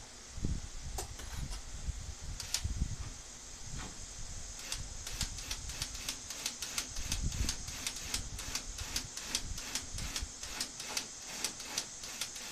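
Cordless drill driving a grille screw into a butterfly drywall anchor, making a steady run of sharp clicks, about three a second, that starts about five seconds in. A few single clicks come earlier.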